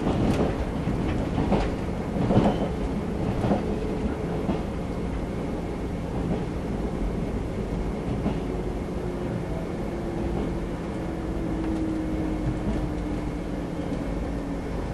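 Running noise of a JR 381 series electric express train slowing into a station: a steady rumble with a few knocks of the wheels over rail joints in the first few seconds, then a faint whine that slowly falls in pitch as the train loses speed.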